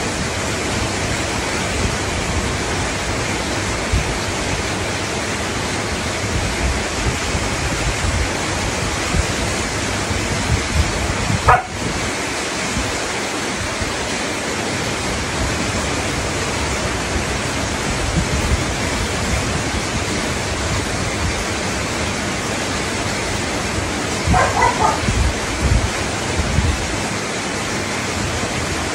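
A dog gives one brief cry a little before halfway, then a few short cries about three-quarters through, over a steady hiss.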